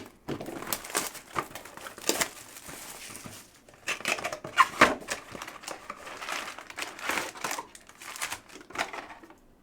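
Plastic wrap and foil card packs crinkling and tearing in irregular bursts as a sealed trading-card hobby box is opened and emptied.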